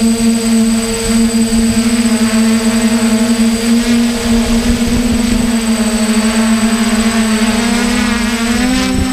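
DJI hexacopter's electric motors and propellers whining steadily, heard close up from the camera mounted on the airframe. The pitch wavers and shifts briefly near the end.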